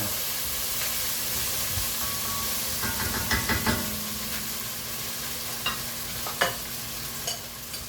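Onions, garlic and ginger sizzling in a hot oiled pan after a splash of water, with a spoon scraping and clicking against the pan a few times, deglazing the browned bits stuck to the bottom.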